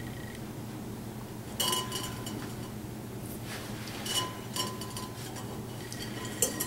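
A handful of light clinks and knocks of wire and metal against a glass bowl as the solar oven's parts are handled. A couple of them ring briefly. A low steady hum runs underneath.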